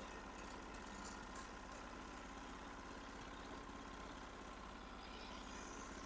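Norwood HD36 sawmill's engine idling steadily between cuts.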